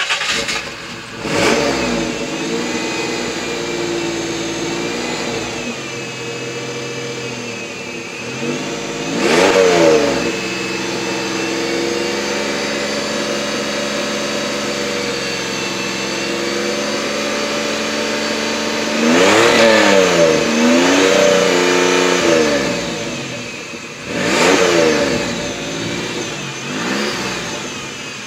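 Dodge Caravan's V6 engine catching and then being revved again and again, heard at the tailpipe: several swells rise and fall in pitch, with a steady fast idle between them. It is burning off Seafoam engine cleaner after a hot soak.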